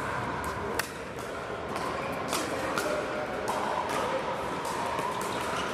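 Pickleball paddles striking the plastic ball: sharp pops coming at irregular intervals, the loudest about a second in, over a steady hum from a large indoor hall.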